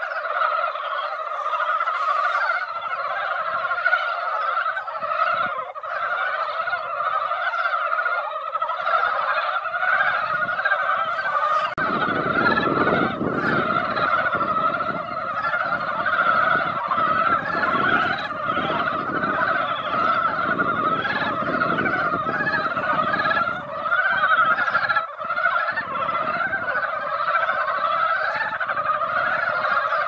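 Spawning-season chorus of many brown frogs (san-gaeguri) calling together in a pond: a dense, unbroken mass of overlapping calls. A low rumble joins under it from about twelve seconds in.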